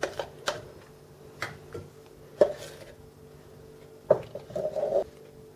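Metal spoon knocking and scraping in a small saucepan of cream, a few light clinks about a second apart, then a sharper knock and a short rattle about four seconds in.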